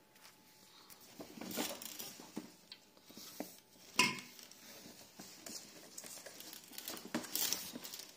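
Groceries being handled in a cardboard box: rustling and scraping against the cardboard with scattered light knocks, and one sharp clink with a short ring about four seconds in.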